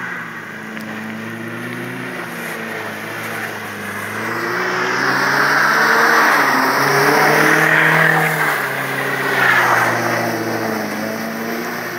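Mercedes-Benz 190 engine revving up and down over and over as the car slides in circles through snow, with a hiss of spinning tyres and thrown slush. The hiss is loudest in the middle, as the car passes close.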